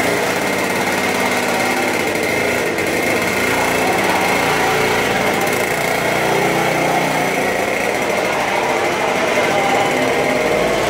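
Senior X30 kart's IAME 125 cc two-stroke engine running, its pitch rising and falling with the throttle as the kart moves off.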